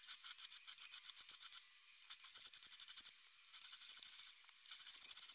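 Hand file rasping across the aluminium-alloy frame of a Beretta 92FS at the backstrap edges. A quick run of short strokes comes first, then three longer strokes of about a second each.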